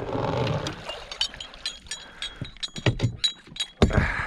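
Irregular metallic clicks and rattles, some ringing briefly, as metal gear is handled, after a short rush of noise at the start.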